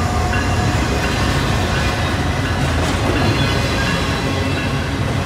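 Union Pacific double-stack container freight train rolling past close by: a steady rumble and clatter of cars and wheels on the rails, over the low drone of a diesel locomotive's engine.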